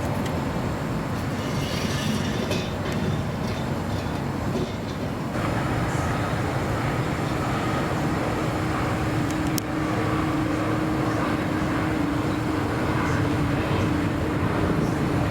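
Steady rumble of jet airliner engines, with a steady hum joining about five seconds in.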